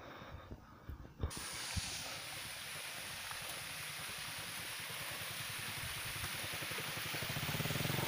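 Steady hiss of water from a small waterfall trickling down a rock face, starting suddenly about a second in. Near the end a vehicle engine approaches, growing steadily louder.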